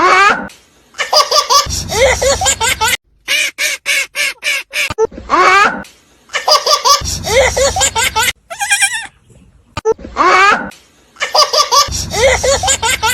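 A young child laughing hard in repeated bouts of quick, rhythmic bursts.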